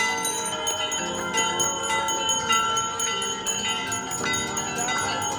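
Metal bells ringing over and over, with many overlapping clanging tones struck again and again, typical of temple bells rung at an aarti.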